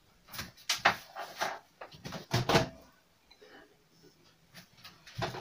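A few sharp clicks and knocks as a microwave oven door is opened and a glass bowl is taken out. Most come in the first three seconds, with a quieter stretch and then another knock near the end.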